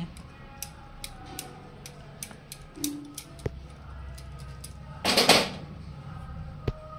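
Dry flour being mixed by hand in a steel bowl, with light clicks of glass bangles scattered throughout and a brief louder rustling scrape about five seconds in. Faint music sits underneath.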